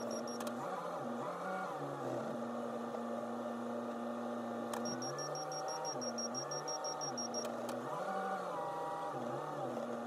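Backhoe loader's diesel engine running under hydraulic load, its pitch rising and falling in steps as the loader arms and forks are worked.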